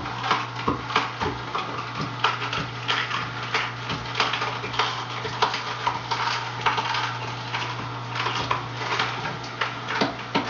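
Masticating juicer running: a steady low motor hum under irregular cracking and crunching, several snaps a second, as the auger crushes the vegetables.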